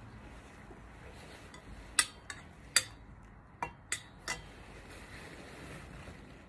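Metal communion spoon clinking against the metal chalice: six sharp, ringing taps over about two and a half seconds, starting about two seconds in. The first and third taps are the loudest.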